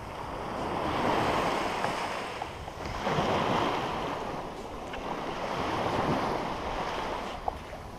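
Small surf waves breaking and washing up a sandy beach, the rush of water rising and falling in three slow swells, with wind on the microphone.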